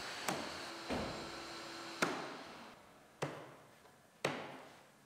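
Plastic push-in clips of a bumper lower valance snapping home into the plastic front bumper cover as it is pressed in by hand: a series of sharp snaps, roughly one a second.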